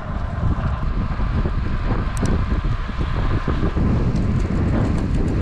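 Wind buffeting the microphone of a camera carried on a moving bicycle: a steady, fluttering low rumble with road noise underneath.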